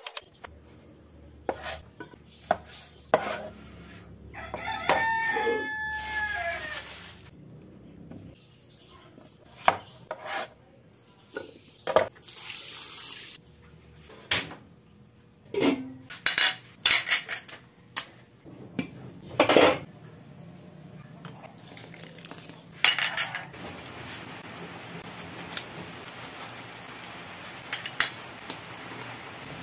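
Kitchen prep sounds: a cleaver knocking on a plastic cutting board, water running in short spells, and pots and utensils clattering. A rooster crows once in the background about five seconds in. Near the end a steady hiss as the sinigang broth cooks in an aluminium pot on a gas stove.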